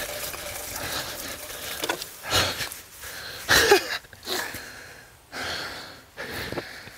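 Two men laughing in breathy, irregular bursts, the loudest about two and a half and three and a half seconds in.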